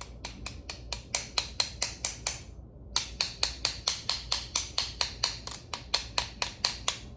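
Sharp, evenly spaced mechanical clicks, about five a second, in two runs with a short pause about two and a half seconds in, from a clicking mechanism being worked while an old brake part is removed.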